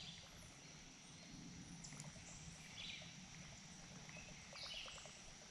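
Near silence: faint outdoor ambience with a few soft ticks and hisses.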